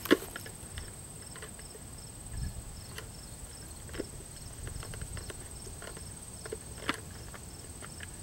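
Sparse, irregular light clicks and knocks, the sharpest one right at the start, over a faint steady high-pitched whine.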